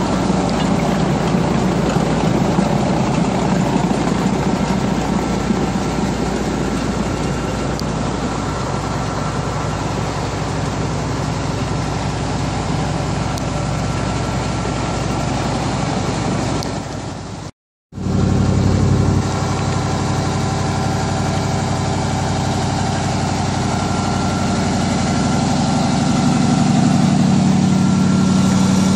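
Diesel engine of a Wirtgen 2000DC cold milling machine running steadily, with a brief break in the sound about two-thirds of the way through.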